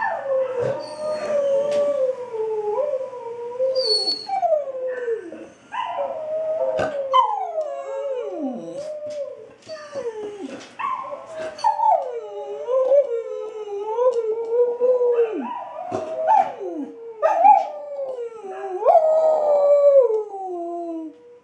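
Australian kelpie howling: long wavering howls that glide up and down in pitch, over a recording of dog howling played through computer speakers, so two howls overlap at times.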